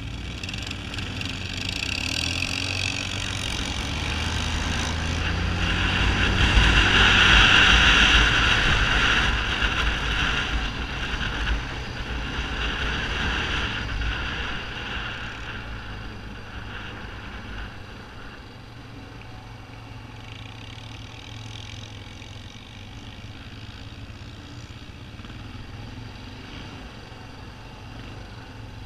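ATV (quad bike) being ridden along a gravel trail: engine running under way, with wind rushing over the front-mounted camera's microphone. Loudest about six to ten seconds in, then steadier and quieter from about eighteen seconds.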